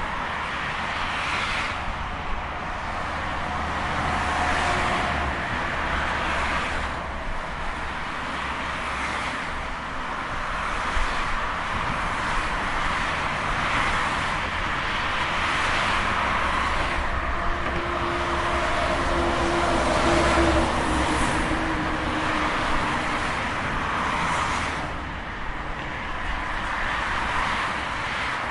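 Highway traffic: a steady rush of tyre and engine noise, with cars passing one after another every few seconds, each swelling and fading.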